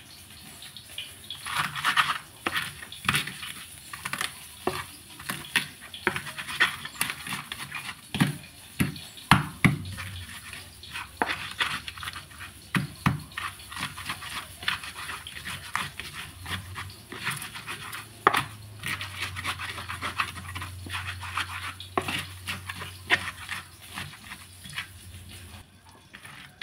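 Stone pestle (ulekan) pounding and grinding chilies, garlic, shallots, tomatoes and candlenuts in a clay cobek mortar: irregular knocks of stone on clay mixed with wet, gritty scraping, as the ingredients are crushed into sambal paste.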